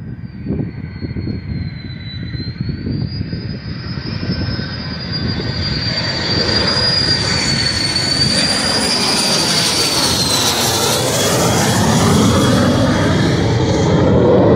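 A US Air Force Thunderbirds F-16 Fighting Falcon jet flying low overhead on landing approach. Its high turbine whine dips in pitch about two-thirds of the way through as the jet passes, over a rushing jet roar that grows steadily louder.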